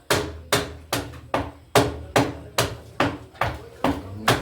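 A hammer striking steadily, about two or three blows a second, each blow sharp with a short ring.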